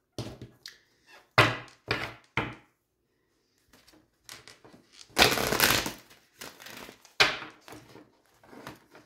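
Oracle cards being handled on a table: several short knocks as cards are set down, and about a second of rustling near the middle.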